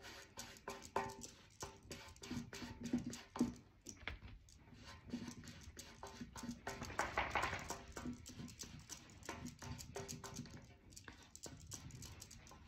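Faint, irregular taps and scuffs of a piece of corrugated cardboard being dabbed and swept through thick wet chalk paint to texture it.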